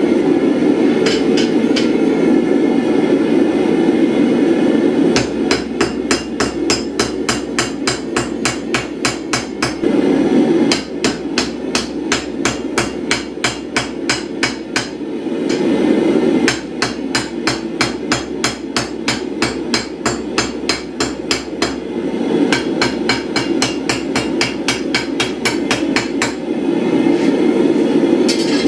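Hand hammer striking hot blade steel on an anvil, in fast runs of about three blows a second broken by short pauses, over a steady low roar.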